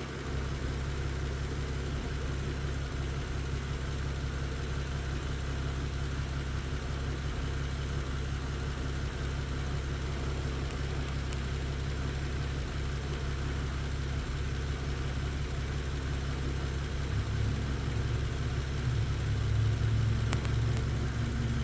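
Car engine idling steadily, a little louder in the last few seconds. The engine has a misfire on cylinder 4 and throws an intermittent P0300 random-misfire code.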